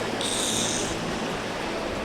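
Mountain river water rushing steadily. A short high-pitched hiss cuts in briefly near the start.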